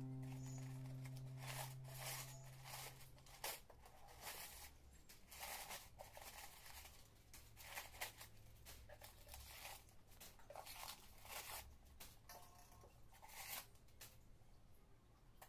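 Crumpled paper packing rustling and crinkling in irregular handfuls as it is pulled out of a wooden clock case. A low ringing tone fades out over the first few seconds.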